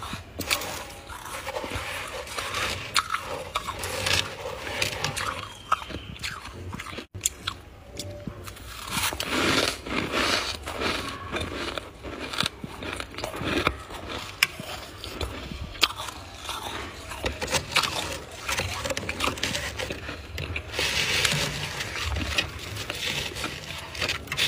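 Powdery, flaky freezer frost being bitten and chewed: dense, irregular crunching and crackling, with a brief break about seven seconds in.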